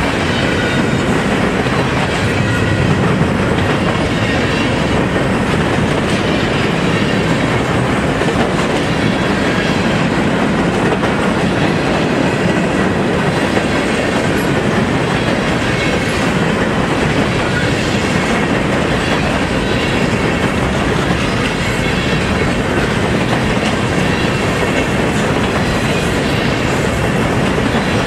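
Freight train cars, boxcars and then tank cars, rolling past close by on steel wheels: a loud, steady running noise of wheels on rail.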